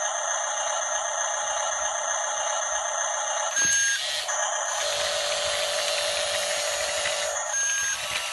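An RC bulldozer's small electric drive motors and gearboxes whine steadily. The pitch shifts about three and a half seconds in and again near the end, as the drive changes.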